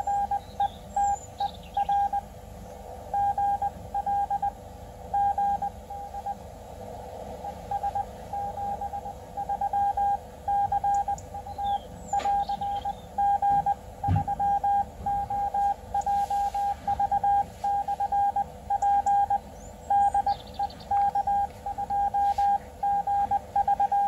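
Morse code (CW) signal received through the speaker of a Xiegu X6100 HF transceiver: a single steady-pitched beep keyed on and off in dots and dashes over a steady hiss of band noise.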